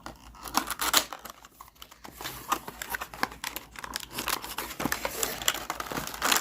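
Advent calendar packaging being handled and opened by hand: crinkling and rustling with a rapid run of small clicks and taps.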